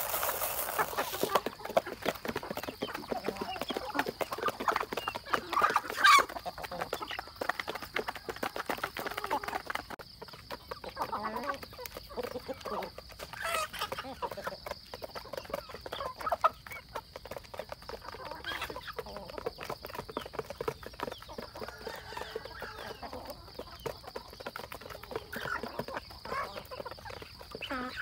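Chickens and roosters clucking as they feed, with many quick taps of beaks pecking grain from feed plates. About the first second, grain pours onto a plate.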